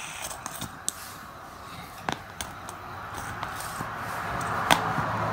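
Light clicks and taps of a fidget spinner as a cat paws at it on a hardcover book, over a steady soft hiss. The sharpest click comes about four and a half seconds in.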